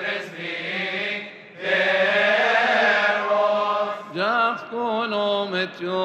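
Coptic Orthodox liturgical chant sung by male voices, with long held notes and wavering melismatic turns, and a short pause about a second and a half in.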